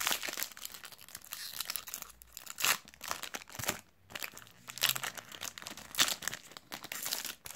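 Foil trading-card sachet being torn open and crinkled by hand, an irregular run of crackling bursts, with a few louder crackles in the second half.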